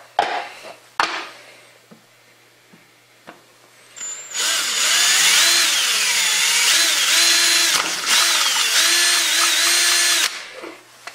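Power drill with a 5/16-inch bit drilling holes in PVC. After a few light clicks at the start, the drill runs for about six seconds from four seconds in, its whine wavering up and down in pitch, then stops.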